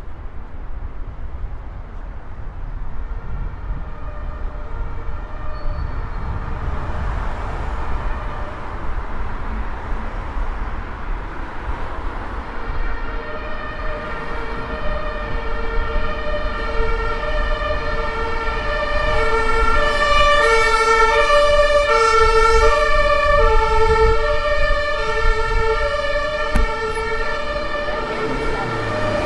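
Emergency-vehicle siren sounding two alternating tones, coming in faintly, growing louder to a peak past the middle, then easing off near the end. Steady city traffic rumble runs underneath.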